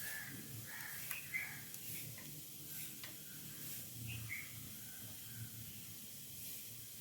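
Birds calling in the background: short calls, often two in quick succession, repeating every few seconds, over a faint low hum.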